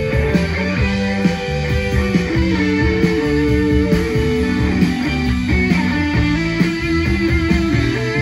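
Live rock band playing: electric guitars ringing over bass guitar and drums keeping a steady beat.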